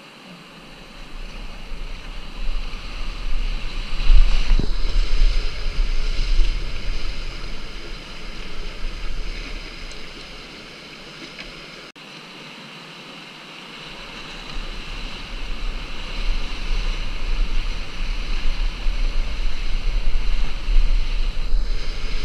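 Rushing, churning whitewater of rapids heard from a kayak in the current, with wind buffeting the camera microphone as a deep rumble. It swells loud, eases off near the middle, then builds again.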